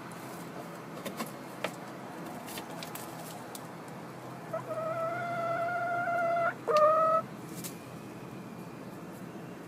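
A chicken calls: one long, steady, held note of about two seconds, then a short second note after a brief break. A few light clicks come in the first two seconds.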